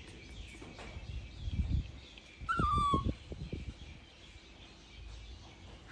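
A baby monkey gives one short, high call that falls in pitch, about two and a half seconds in, with a few soft low thumps around it.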